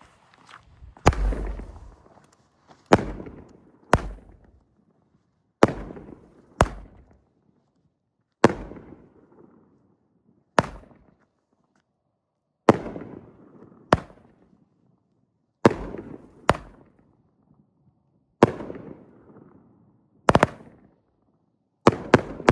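Aerial fireworks bursting in the sky: a series of about fifteen sharp bangs, roughly one every one to two seconds, each with an echoing tail, with a quick double bang near the end.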